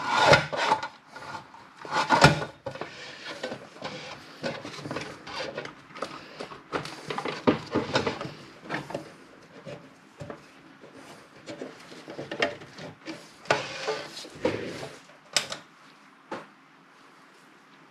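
Sheet-metal case of a bench power supply being slid back together and handled: irregular scrapes, rubs and knocks, with a louder knock about two seconds in and two sharp clicks near the end.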